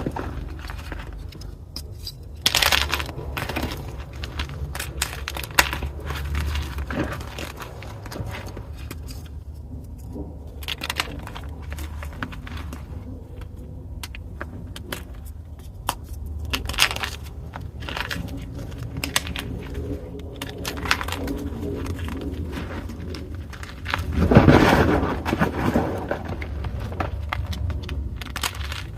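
Pieces of magnesium carbonate gym chalk being crushed by hand: a run of dry crackles and crunches, with a louder, longer crunch about three-quarters of the way through.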